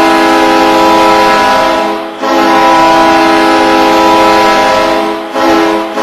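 Hockey goal horn: a chord of several steady tones, like a multi-chime train horn, sounded in long blasts with short breaks about two seconds and about five seconds in.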